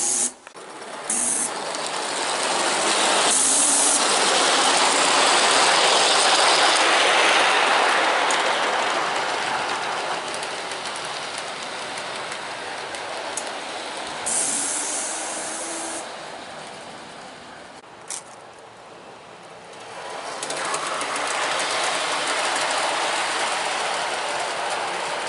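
A Gauge 1 live-steam locomotive hauling coaches round a garden railway track. Its running noise swells and fades as it goes round the loop, dipping lowest about eighteen to twenty seconds in before rising again.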